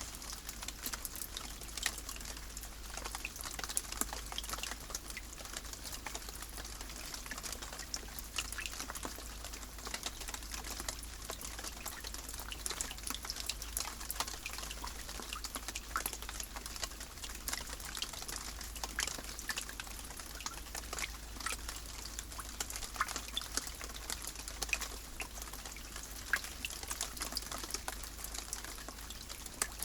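Steady rain falling: an even hiss made of many small drop impacts, with a steady low rumble underneath.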